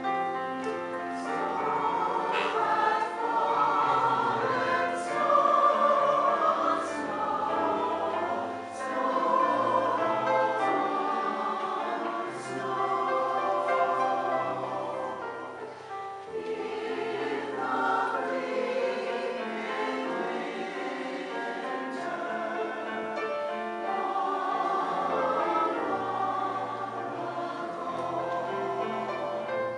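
Community chorus singing in several voice parts, holding long chords that shift every second or two.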